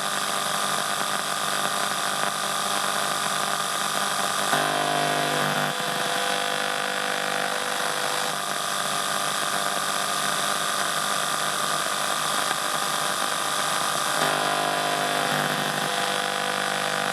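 Radio static and interference between stations: a steady hiss laced with buzzing, whining tones, which shift in pitch and pattern a few times.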